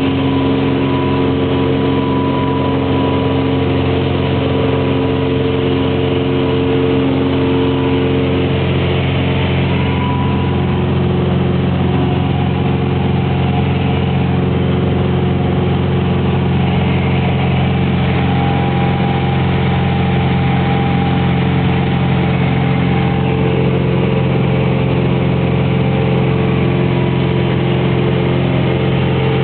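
Cessna T-41's single piston engine and propeller running steadily during the climb-out after takeoff, heard inside the cabin.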